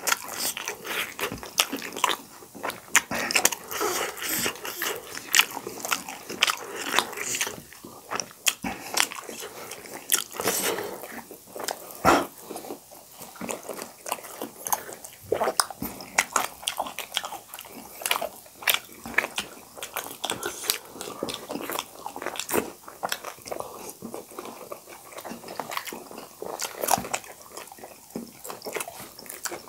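Close-up eating sounds of people chewing momos and pani puri: wet smacking and biting with some crunching, a dense, irregular run of mouth clicks.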